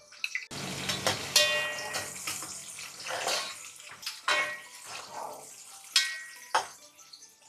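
Sliced onions and curry leaves sizzling in hot oil in an aluminium pot, starting abruptly about half a second in, while a slotted spatula stirs them, with sharp scrapes and knocks against the pot.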